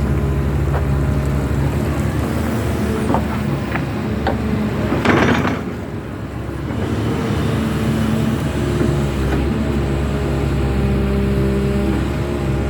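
Heavy diesel earthmoving machinery running steadily under load, with a few short knocks and a loud rushing burst about five seconds in.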